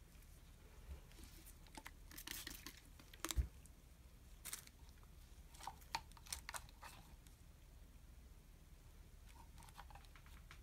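Faint rustling, crinkling and light taps of nitrile-gloved hands handling soap pieces on a cloth-covered work table, with the sharpest tap about three and a half seconds in and scattered small clicks until about seven seconds in.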